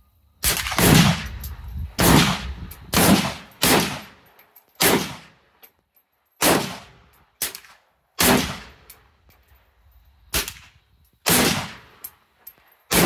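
Rifle shots, about a dozen single shots fired at uneven intervals, some in quick pairs, each followed by a short ringing echo.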